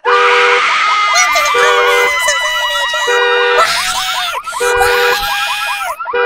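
Loud siren and alarm sound effects layered together, starting suddenly. A low two-note tone sounds for about half a second every second and a half, over fast, repeated rising-and-falling whoops and higher held tones.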